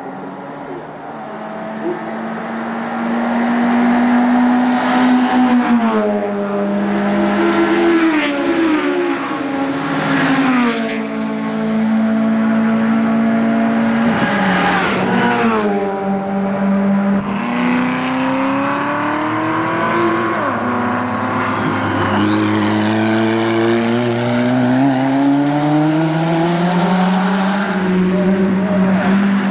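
Several modified race cars passing at speed, one after another. Their engines run hard, and the engine pitch climbs and drops repeatedly as they shift and go by.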